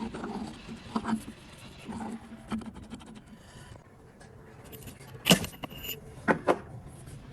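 Metal parts and tools clinking and knocking during work on a hoist, with a few sharp knocks, the loudest about five seconds in and two more a second later.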